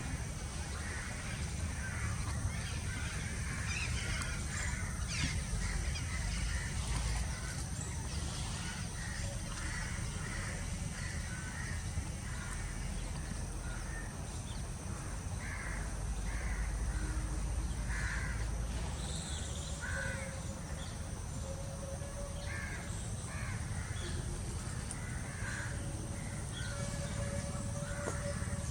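Outdoor nature ambience: birds giving short, harsh calls over and over, about one every second or two, over a steady low rumble and a faint steady high-pitched hum.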